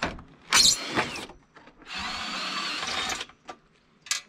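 Ryobi cordless drill running on the camper tongue's winch mount: a short loud burst with a falling whine, then a steady run of about a second and a half.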